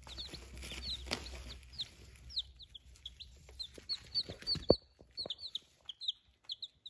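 Baby chicks peeping continually: many short, high, falling peeps from a group of chicks. A few knocks sound among them, the loudest about two-thirds of the way in.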